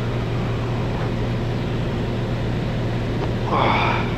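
Cessna 210 Centurion's six-cylinder piston engine and propeller droning steadily, heard inside the cabin, with a short burst of higher sound about three and a half seconds in.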